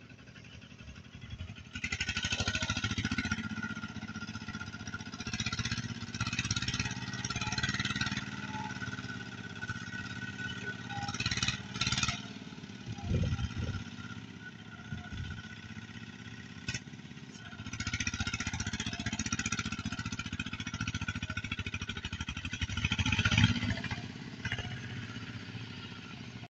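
Engine running steadily at low revs, with several stretches of loud rustling hiss laid over it.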